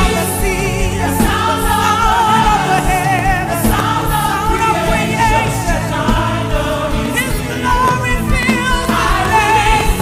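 Gospel worship music: several voices singing with vibrato over sustained instrumental chords.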